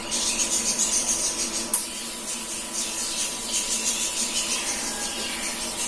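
AC TIG welding arc on aluminium, a steady buzz with a crackling hiss over it, melting a first small puddle. A sharp click comes near two seconds in.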